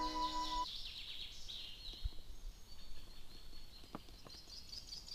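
Background music cuts off under a second in. After that, birds sing at the riverside: rapid, repeated high chirps, with a couple of faint clicks.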